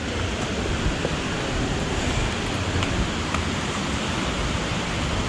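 Steady, even rush of a stream falling over small waterfalls.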